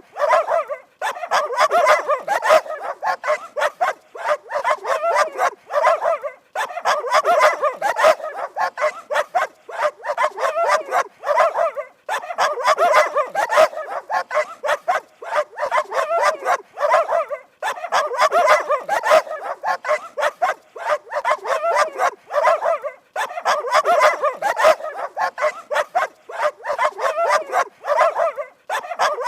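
A dog barking rapidly and continuously, in runs of about five seconds separated by brief breaks.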